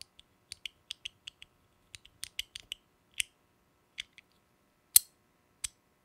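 Pewter Cicada fidget insert clicking in its metal C1 chassis as a thumb works it back and forth: about twenty sharp clicks at irregular spacing, some in quick runs, the loudest about five seconds in.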